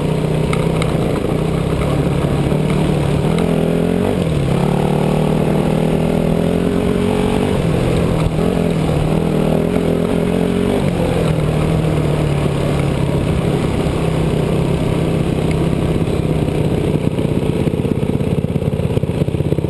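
2006 Yamaha WR250F's 250 cc four-stroke single-cylinder engine running under way, revs rising and falling in the middle, then holding steadier toward the end.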